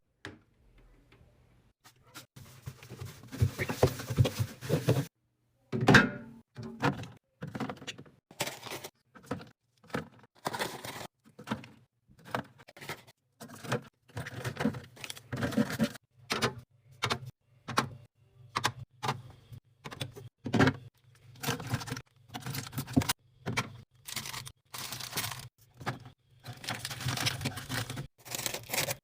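Snacks and drinks being unpacked and set into a fridge: a run of short knocks and clatters of plastic containers, bottles and cans, with longer stretches of packaging rustling about two seconds in and near the end.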